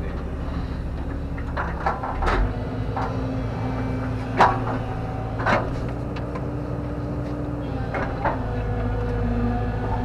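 JCB JS130 tracked excavator heard from inside its cab: the diesel engine running steadily under load, with a humming tone that shifts as the arm works, and several sharp clunks and knocks from the digging, the loudest about four and a half seconds in.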